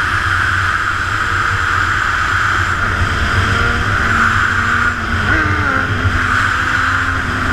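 Heavy wind rumble on an action-camera microphone riding at speed, with a motorcycle engine note underneath that climbs in pitch and jumps up sharply about two-thirds of the way through.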